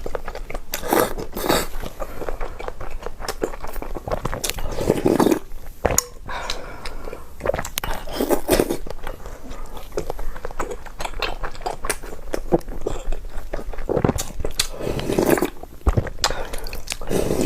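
Close-miked eating: a person chewing and biting food, with many short wet clicks and smacks and a few louder mouthfuls spaced a few seconds apart.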